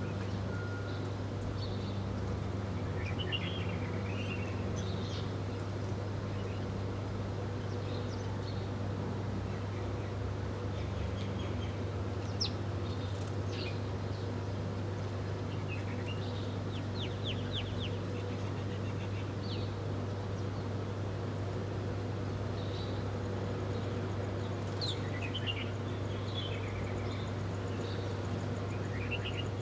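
Scattered short bird chirps and twitters, including a quick run of about six notes midway, over a steady low hum.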